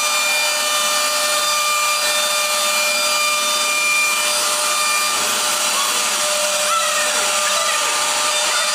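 A woodworking power machine running steadily, a whine held on several pitches over an even hiss, with the sound of wood being worked.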